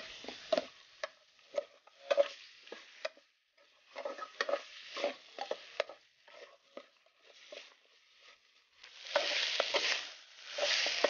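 Metal spatula scraping and clacking against a metal pot as pork bones are stir-fried with a pounded garlic, pepper and coriander-root paste, with a light sizzle: the bones being toasted until fragrant. The strokes come irregularly, sparser in the middle and louder and denser near the end.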